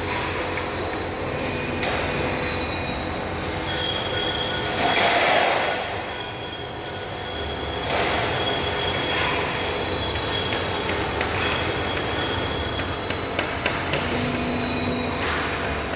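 Roll forming machine running, steel strip squealing through its forming rollers with a steady high whine and several sharp metallic knocks.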